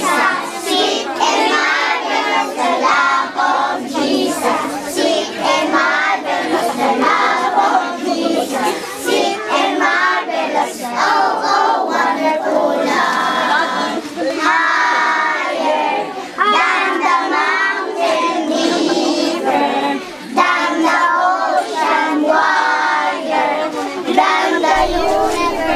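A crowd of children singing a worship song together, led by their teacher, with hand clapping along.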